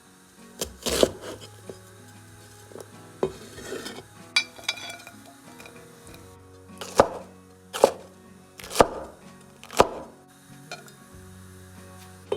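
Quiet background music, with a utensil knocking against a cooking pot now and then as pasta is stirred in its boiling water; four knocks come about a second apart in the latter half.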